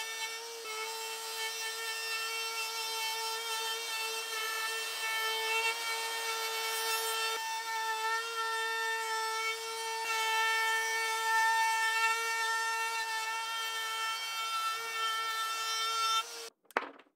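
DeWalt compact router running with a steady high whine as its round-over bit cuts along the edges of reclaimed hardwood legs and aprons. It cuts off suddenly near the end.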